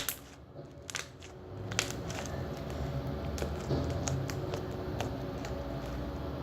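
Purple glitter slime being squeezed and worked in the hands, giving scattered small crackling pops, with a sharp click at the very start.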